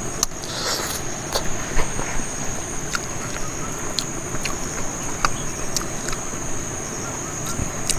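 Steady high-pitched drone of crickets or other insects over a low rumbling background, with scattered sharp clicks and smacks of someone chewing food eaten by hand.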